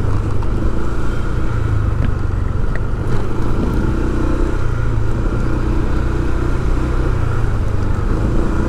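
Motor vehicle engine running steadily with a strong low rumble and road noise, heard from the vehicle as it travels.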